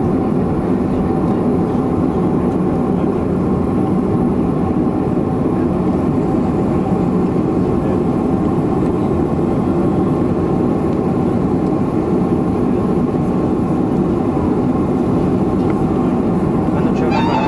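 Steady cabin drone inside a Boeing 737-500 airliner: a loud, even rumble with a couple of steady tones over it.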